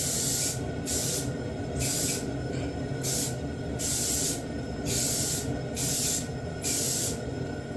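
Aerosol spray-paint can spraying in about eight short bursts of hiss, each under a second, with brief pauses between them.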